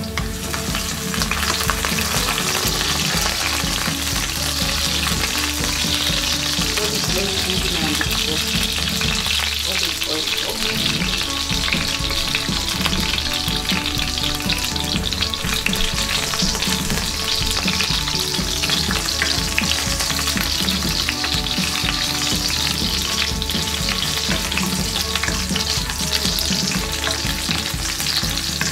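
Garlic cloves frying in hot oil in a wok, a steady sizzle that picks up just after the start, with a spoon stirring through the oil.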